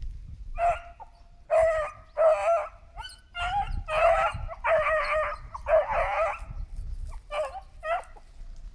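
A pack of scent hounds giving tongue: about ten high, yelping cries in quick succession, some short and some drawn out, as the hounds work the scent trail of a rabbit.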